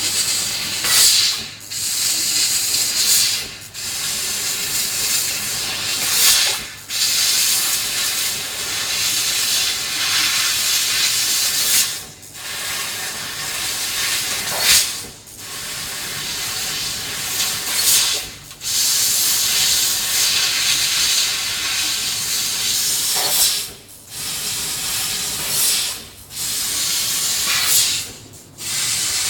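Engraving and cutting machine running with a loud, steady hiss that breaks off briefly every few seconds and then resumes, over a faint steady hum.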